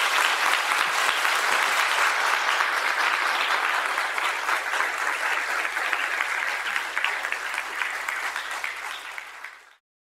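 Audience applauding: many hands clapping in a dense, steady patter that fades out near the end.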